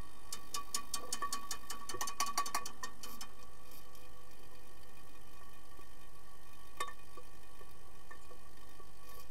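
Underwater sound in a swimming pool during an underwater hockey game: a quick run of sharp clicks for about three seconds, then one lone click later on, over a steady hum with several held tones.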